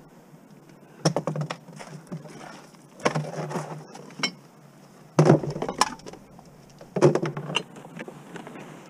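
Empty drink containers, glass bottles, milk cartons and plastic jugs, clattering and clinking as they are grabbed and pulled from a packed van load, in four short bursts about two seconds apart.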